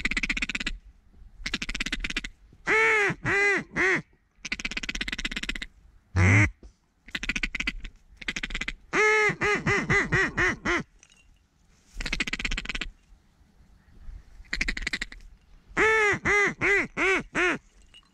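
Ducks quacking: three runs of five to eight loud quacks in quick succession, with harsher, raspier calls in between.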